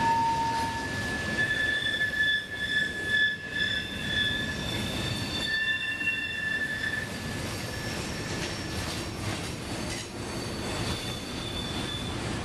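Freight cars' steel wheels squealing as the train rolls through a curve: several high, shifting squeal tones that fade in and out over the steady rumble of wheels on the rails.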